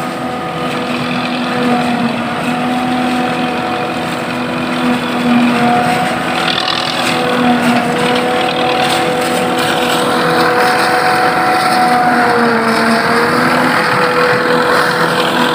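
Claas Jaguar forage harvester and a tractor running together while chopping maize for silage: a steady engine drone with a constant machine hum, getting louder from about ten seconds in as they draw closer.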